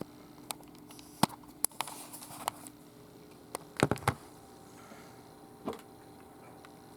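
Scattered sharp plastic clicks and clacks of a Rubik's cube being handled and turned, with a quick cluster of louder clicks about four seconds in.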